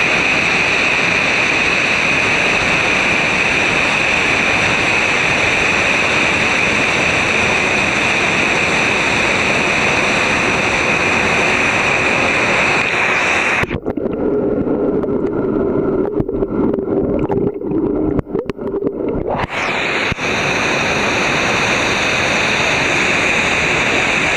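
Mountain waterfall pouring over rock into a pool: a loud, steady rush of falling water. For about six seconds just past the middle the sound turns muffled and dull, its hiss dropping away, before the full rush returns.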